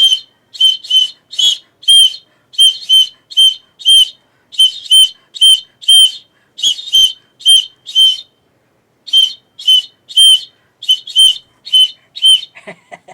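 A whistle blown in many short, sharp blasts, a few a second and often in quick pairs, with a brief pause about nine seconds in.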